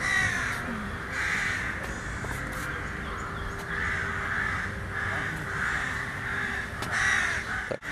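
Crows cawing repeatedly, a string of harsh calls about once a second.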